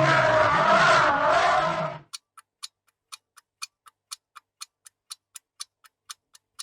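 A loud, noisy sound with a wavering pitch for about two seconds cuts off suddenly. A clock then ticks about four times a second, a countdown ticking.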